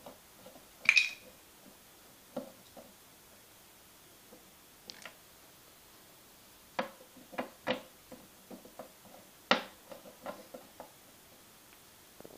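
Irregular clicks, taps and light knocks of olfactometer parts being handled and fitted together, with one sharp ringing clink about a second in.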